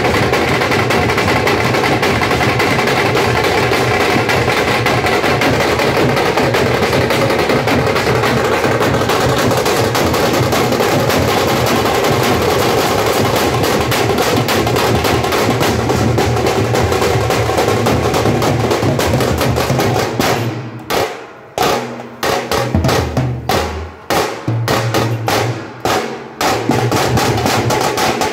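Teenmaar street drum band: a line of large stick-beaten drums playing a fast, dense, loud rhythm. About two-thirds of the way through the playing breaks into a stop-start pattern of separate strokes and short pauses, then the full beat comes back near the end.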